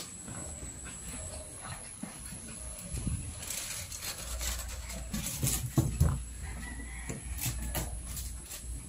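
A litter of two-month-old American Bully puppies making small dog sounds as they move about on a tiled floor, with scattered short clicks and knocks and a louder cluster a little past the middle.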